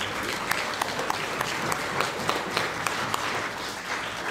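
Audience applauding: many hands clapping together in a dense patter, with single sharp claps standing out.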